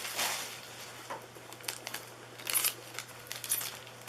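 Plastic packaging film being torn and crinkled by hand as a satellite speaker is pulled out of it, in irregular short rustling bursts, loudest about two and a half and three and a half seconds in.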